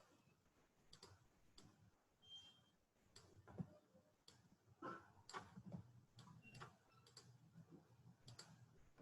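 Faint, irregular computer mouse clicks, several a second at times, over a low steady hum.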